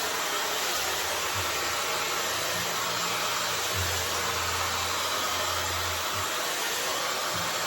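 Dyson hair dryer blowing steadily with an even rushing hiss, a low hum swelling in the middle, while drying curly hair.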